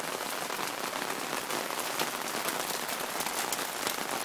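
Light rain falling on a wooden deck and its railing: a steady hiss dotted with many small drip ticks.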